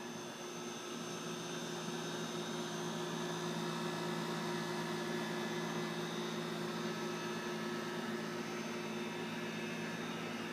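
A steady mechanical hum: a set of low, unchanging tones over an even hiss, growing slightly louder over the first two seconds and then holding level.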